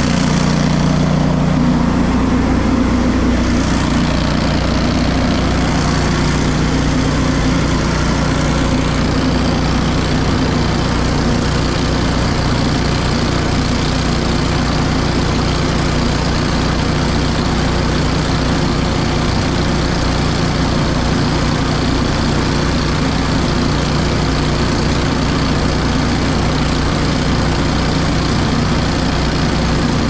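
Steady engine drone from a Batco belt conveyor's engine running under load while it loads corn into a semi trailer, with a grain dryer running nearby. The hum is a little stronger in the first few seconds.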